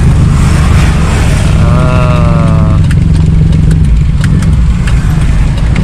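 2002 Toyota Kijang LGX 2.0 EFI engine running at crawling speed in stop-and-go traffic, a steady low rumble heard from inside the cabin with the windows open. About two seconds in, a brief pitched tone sounds for about a second, falling slightly in pitch.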